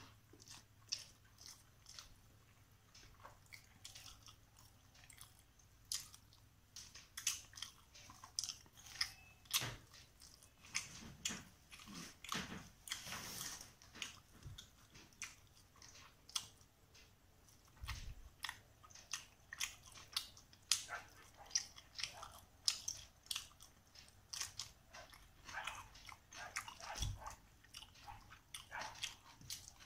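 Close-up chewing and mouth clicks of a person eating rice and carp curry by hand, irregular and frequent throughout, with fingers mixing rice on a steel plate and a couple of dull knocks.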